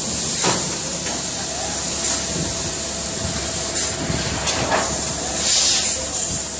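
Tube-rolling bender running as stainless steel tubing feeds through its rollers: a steady hiss of machine noise with a faint steady whine and a couple of brief metal scrapes.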